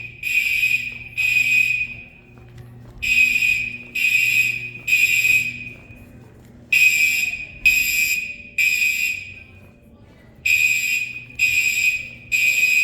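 Gentex Commander fire alarm horns sounding the temporal-three evacuation pattern: three short blasts of a loud, high, buzzing tone, then a pause of about a second and a half, repeating.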